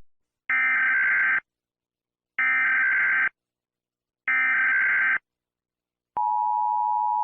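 Emergency Alert System SAME header: three identical bursts of digital data tones, each just under a second long, about a second apart. About six seconds in, the steady two-tone EAS attention signal starts.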